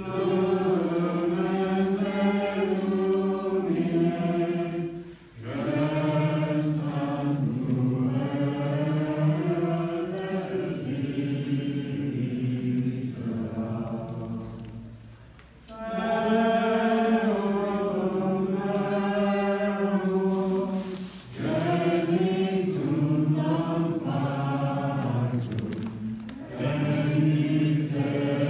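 Congregation singing together during Mass, in long sung phrases with short pauses between them.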